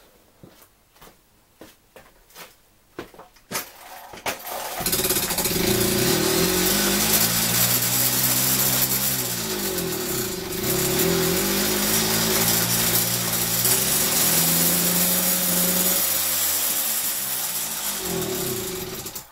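1965 Peugeot 102 moped's 50 cc two-stroke single-cylinder engine, after a few light clicks, starting about five seconds in and running with its revs rising and falling again and again as the throttle is worked. It struggles to pick up revs, which the owner puts down to a cylinder that does not match the piston. It stops abruptly at the very end.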